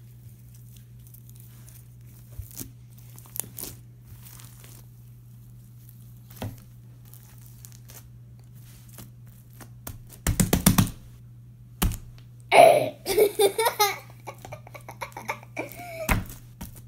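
Foam-bead crunchy slime being handled: faint scattered clicks and crackles of the beads, then a cluster of sharp smacks about ten seconds in, another near twelve seconds, and a louder burst of smacks and crackling with a child's voice mixed in.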